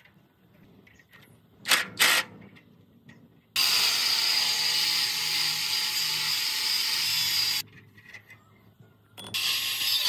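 A power tool runs in a loud, steady hiss for about four seconds, cutting in and out sharply. It is preceded by two short knocks and starts up again near the end.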